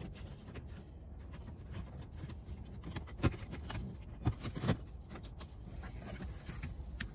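Lexus IS plastic side air vent being pressed into the dash: light plastic handling, with a few sharp clicks about halfway through as its mounting clips snap into place, over a faint steady low background.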